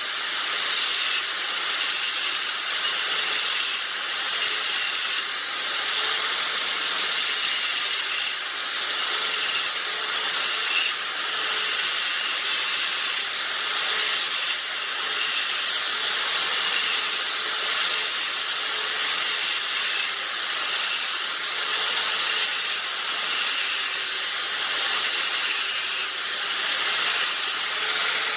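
Angle grinder cleaning a metal tank bung down to bare metal for welding: a steady grinding hiss, with the motor's hum wavering slightly in pitch under load.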